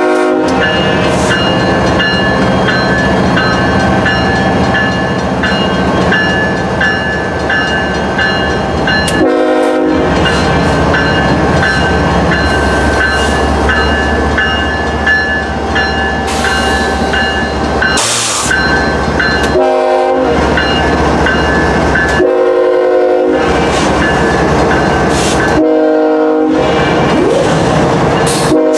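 Diesel freight locomotives, among them Canadian Pacific heritage SD70ACU 7012, rumble steadily at close range as they creep past. A horn sounds in several short blasts spread through the stretch, and there is a brief hiss of air about 18 seconds in.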